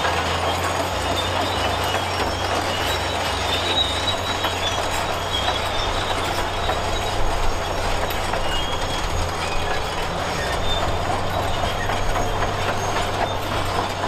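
Caterpillar D10T crawler bulldozer on the move: its diesel engine runs steadily under the continuous clanking rattle of its steel tracks, with some faint squealing from the tracks.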